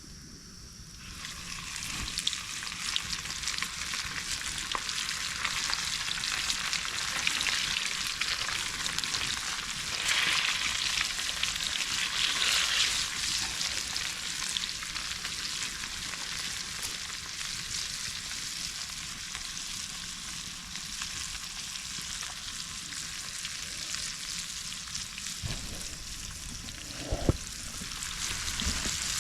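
Food frying in hot oil in a pan over a campfire: a dense, crackling sizzle that starts about a second in and grows louder for a while. A single sharp knock comes near the end.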